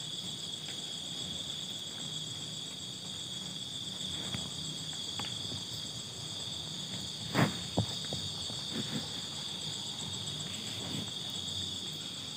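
Night chorus of crickets and other insects: a steady, high-pitched trilling. A couple of sharp knocks or cracks come about seven seconds in, with a few fainter ones shortly after.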